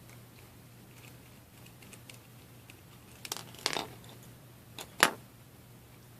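Light handling noises from small tools and laptop parts: a brief cluster of clicks and rattling a little past three seconds, then a sharp click about five seconds in.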